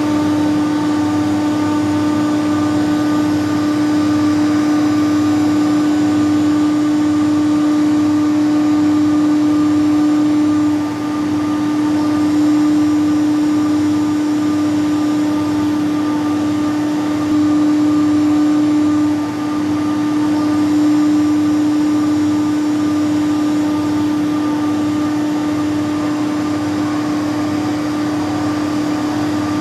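Doosan VCF 850LSR machining centre running: a steady mechanical hum with one strong, constant low whine, dipping briefly twice, about a third and two-thirds of the way in.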